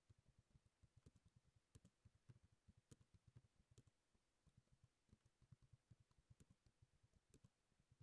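Faint typing on a computer keyboard, a quick run of keystrokes at several a second.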